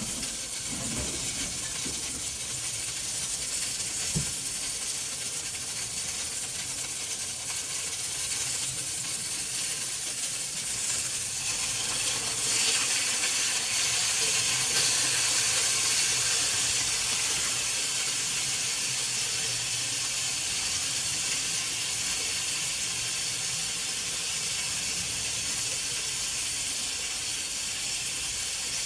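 Food sizzling in a hot pan on the stove, a steady hiss that grows louder about twelve seconds in, with a light knock near the start.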